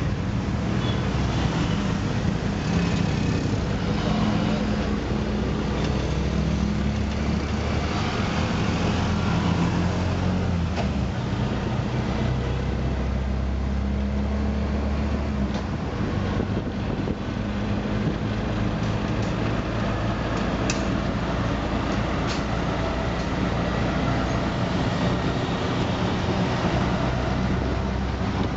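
Small engine of a bajaj auto-rickshaw running steadily while under way, heard from inside its open cab, its note shifting lower and back around the middle as it changes speed, with street traffic around it.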